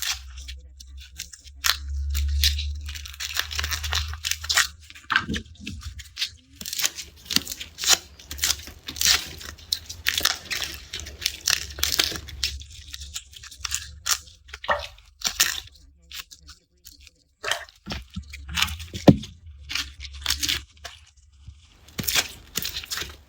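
Garlic being peeled by hand close to the microphone: dry papery skins crackling and tearing, with many sharp crisp snaps, and a low thump of handling between two and four seconds in.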